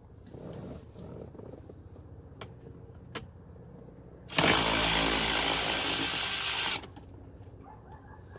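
Cordless Milwaukee power tool running for about two and a half seconds, starting about four seconds in and stopping abruptly, as it drives out a 10mm glove-box bolt. Before it come a few light clicks and knocks of the socket being fitted to the bolt.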